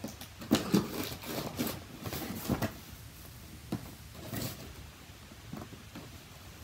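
Pocket knife slitting the packing tape on a cardboard box, with the box shifting and rubbing: a series of short, irregular scrapes and a few light knocks.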